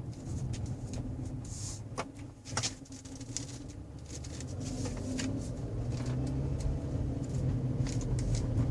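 2011 Hyundai Sonata 2.0 Turbo's engine running, with the owner's intermittent strange noise on top: scattered clicks and faint chirps, here with the A/C fan off. The noise seems to come from the passenger side of the engine, and the engine sound grows louder about halfway through.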